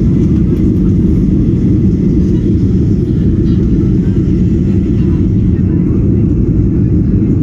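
Steady, loud rumble of an airliner's engines and airflow heard from inside the passenger cabin, the noise deep and unchanging.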